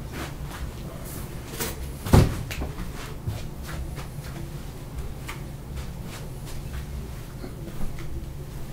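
Scattered light knocks and clicks, with one louder thump about two seconds in, over a steady low hum.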